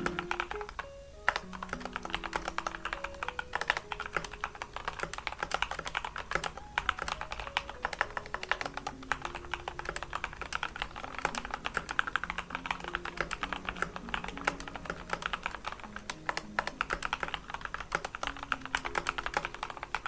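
Steady, fast typing on a Dustsilver D84 retro mechanical keyboard with Gateron Red switches: a dense stream of keystroke clacks with a brief lull about a second in. Soft background music plays underneath.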